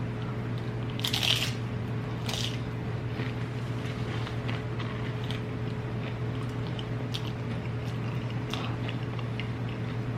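Close-up eating sounds: a person biting and chewing crunchy food, with the loudest crunch about a second in and another just after two seconds, then smaller scattered crunches. A steady low hum runs underneath.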